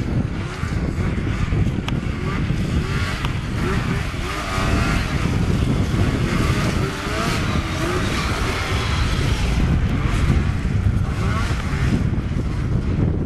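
Snowmobile engine running under changing throttle as the sled is steered through tight turns, its pitch rising and falling through the middle.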